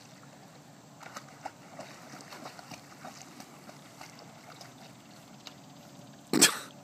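A quiet background with faint scattered ticks, then one short, loud vocal sound close by near the end.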